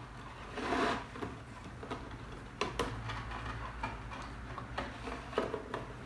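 Pleated humidifier filter sliding down into a plastic tank with a brief scraping rustle, followed by a few light, sharp plastic clicks and taps as it is pushed into place.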